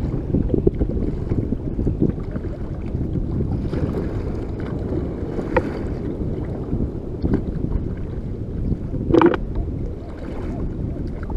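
Wind buffeting the microphone over water sloshing around a kayak as it is paddled with a double-bladed paddle, with a brief louder knock or splash about nine seconds in.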